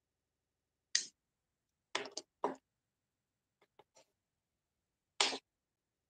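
About eight short, sharp clicks and taps at irregular intervals, with quiet between them. The loudest are about a second in and near the end, with fainter ticks in between.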